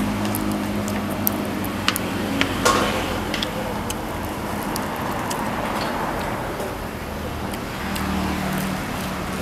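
A motor vehicle's engine running close by, its hum fading after about three seconds and returning near the end, over scattered sharp clicks and knocks, the loudest a little under three seconds in.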